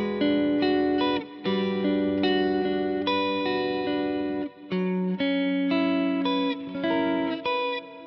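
Covenant Tradition T-SP electric guitar, with humbucking Alnico V pickups, played in phrases of picked chords and single notes that ring out. The playing breaks briefly about a second in and again about four and a half seconds in.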